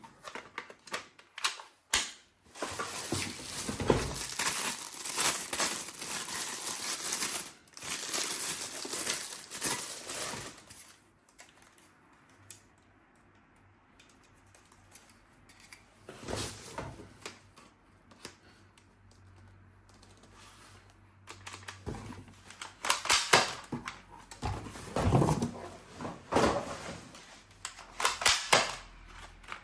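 Packaging being unwrapped, crinkling and tearing for several seconds, then a quieter pause, then bursts of rustling and sharp clicks near the end.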